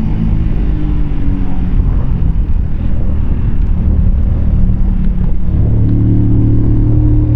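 Keeway K-Light 125's small V-twin engine running while the bike is ridden. For several seconds its steady note is buried in rough wind rumble, then a steady engine note comes back near the end.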